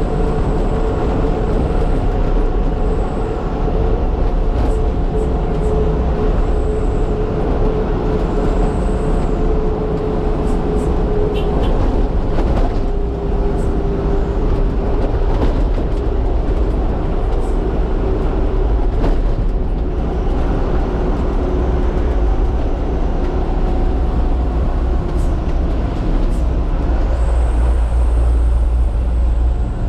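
Heavy cargo truck on the road: steady engine drone over a low road rumble, its pitch drifting slowly.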